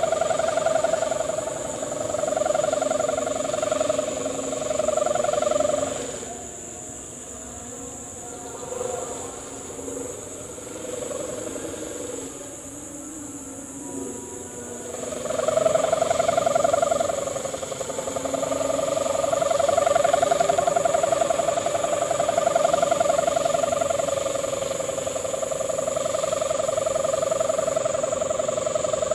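Kite hummer (sendaren) on a flying kite, droning in the wind: one steady tone with a fluttering beat. It fades almost away for several seconds in the middle, then swells back.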